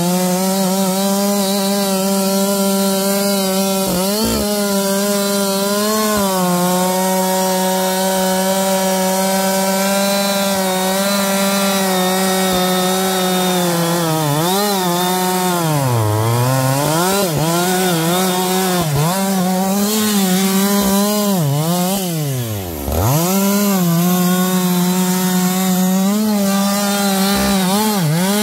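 Husqvarna 560 two-stroke chainsaw at full throttle, its 18-inch bar cutting into the base of a large oak trunk. The engine note holds steady but sags in pitch several times as the chain loads in the wood, dropping sharply and briefly about two-thirds of the way through before picking back up.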